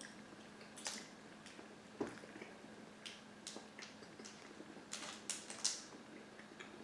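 Faint, scattered crinkles and small crunches of a snack being handled and eaten, with a sharper crinkling burst about five seconds in.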